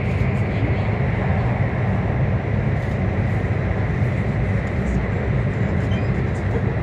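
Cabin noise inside a CRH1A high-speed train running at speed: a steady low rumble of wheels on rail with an even rush of noise above it.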